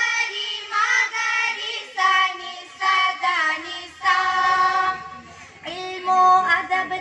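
A group of schoolgirls singing an Urdu group song in unison, in short sung phrases about a second each, with a brief lull around five seconds in.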